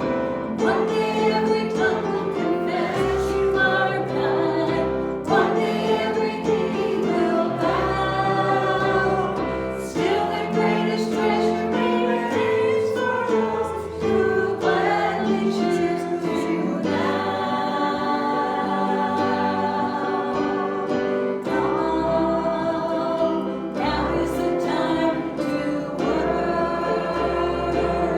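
Congregation and worship band singing a gospel hymn, voices together over sustained instrumental accompaniment with a steady bass line.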